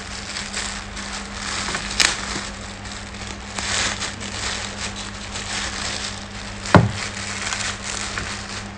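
Clear plastic wrapping crinkling and rustling as a bunch of artificial roses is handled and pulled from its bag, with two sharp clicks, about two seconds in and, louder, near seven seconds.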